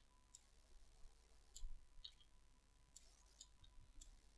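Near silence with about five faint clicks from a computer mouse and keyboard.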